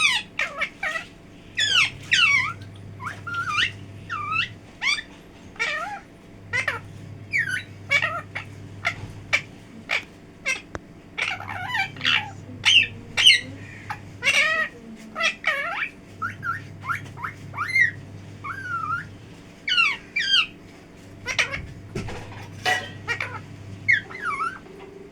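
Pet parrot calling: a quick, irregular string of short squawks, chirps and whistled sliding notes, with brief pauses between bursts.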